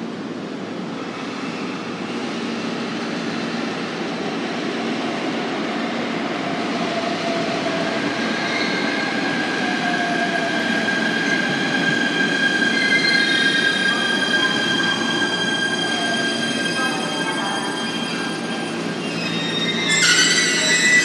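JR East E129 series electric train running into the platform and braking: the rumble of wheels on rail builds, then several high, steady squeal tones from the wheels and brakes join in for the second half. A sudden loud burst of noise comes near the end as the train comes to a stop.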